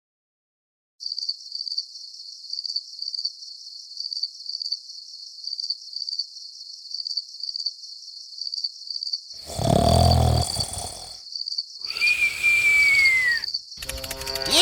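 Crickets chirping in a steady, even high-pitched rhythm, starting about a second in. Near the end, three loud bursts of noise break in over it: the first deep and rumbling, the second carrying a falling whistle-like tone.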